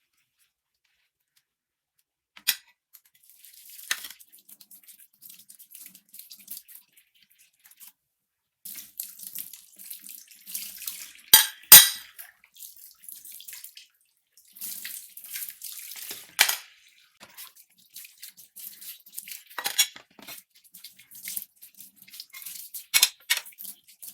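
Dishes being washed in a kitchen sink: water splashing on and off, with scattered sharp knocks of dishware, the loudest a pair about halfway through.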